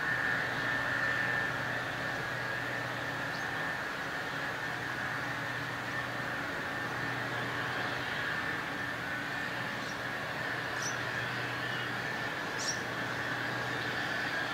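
A distant combine harvester working: a steady drone with a low hum and a high whine. A few short high chirps come through, most of them in the second half.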